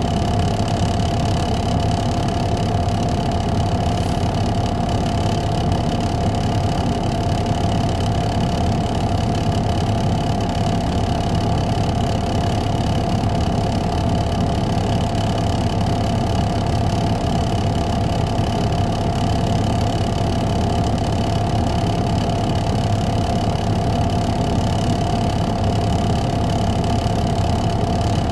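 Caterpillar C13 ACERT diesel engine of a 2007 MCI D4500CL coach running steadily, heard from inside the passenger cabin: an even low rumble with a constant mid-pitched whine over it, with no change in engine speed.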